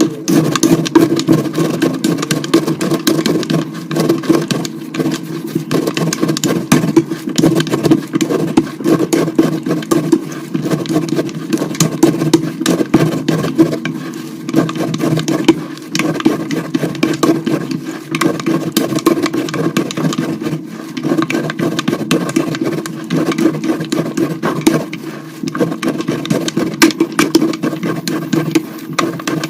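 Colourful gym chalk hearts being crushed and crumbled: a dense, continuous crunching crackle.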